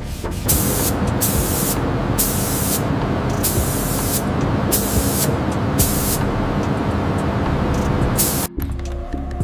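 Spraying hiss in repeated short bursts over a steady rush of noise, each burst a second or less, cutting off suddenly near the end.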